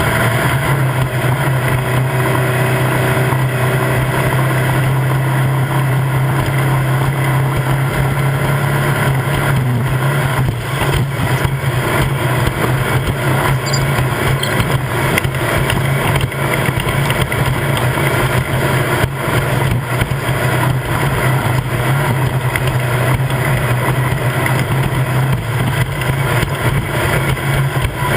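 Off-road desert race vehicle's engine running hard at a steady pitch under road and wind noise, with scattered knocks and rattles over rough ground.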